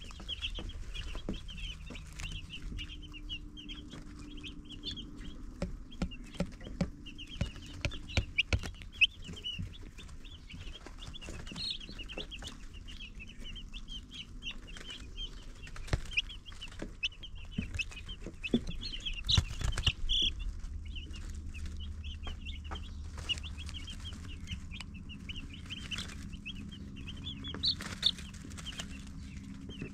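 A brood of baby chicks peeping constantly, with many short high peeps overlapping one another. Scattered sharp taps and knocks run through it, and a low steady hum sits underneath.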